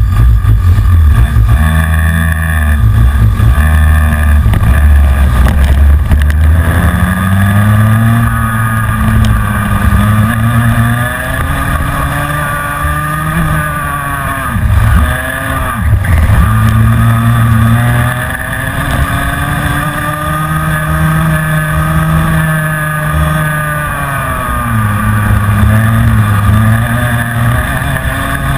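Onboard sound of a Minimax racing kart's single-cylinder two-stroke engine. It runs choppily at low revs for the first several seconds, then pulls away with its pitch rising and falling with the throttle. The pitch drops sharply twice about halfway through as the throttle is lifted.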